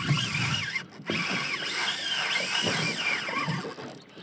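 Shimano Stradic 2500 spinning reel's drag whining as 10-pound braid is pulled off the spool: a big queenfish running against the drag. The pitch wavers up and down and the sound fades near the end.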